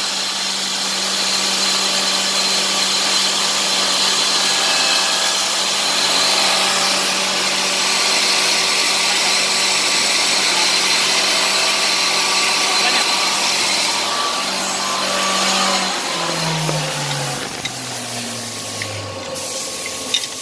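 Automatic wood copy shaper running, its spinning cutter heads machining a wooden workpiece: a steady hum under a loud cutting hiss. About four seconds before the end, the hum falls in pitch and the noise eases.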